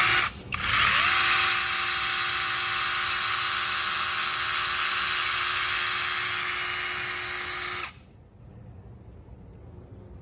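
Dekton M21-CS08BL 21 V cordless chainsaw running with no load, its electric motor and chain whirring. It stops briefly right at the start, then runs steadily for about seven seconds, its tone rising as it spins up, and cuts off suddenly.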